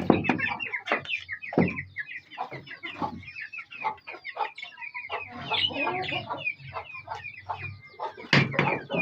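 Chicks peeping in a busy, continuous chatter, with a hen clucking among them and a few sharp knocks.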